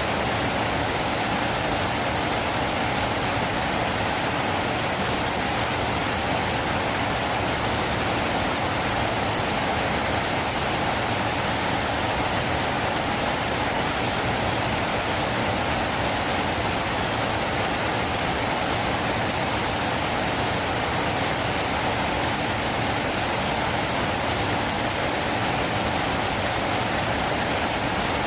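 River water flowing: a steady, even rush of water with no breaks or changes.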